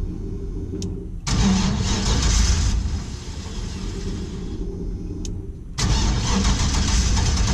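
The starter cranking the 1949 International KB2's swapped-in GM V8. It turns over but never fires: it cranks in two bursts with a short pause about five seconds in.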